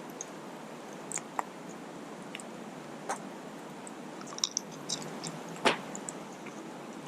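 Campfire burning: a steady soft hiss with scattered small crackles and a few sharper pops.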